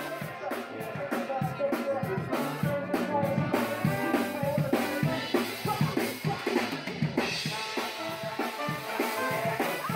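Live street band playing: a drum kit keeps a brisk beat on snare and bass drum while a tuba and other horns play pitched lines over it.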